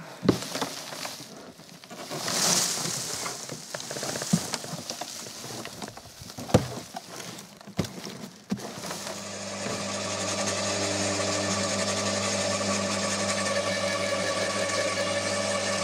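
Cane being chopped: irregular knocks and sharp cracks with a rustle of stalks. About nine seconds in, a motor-driven machine starts and runs with a steady, even hum.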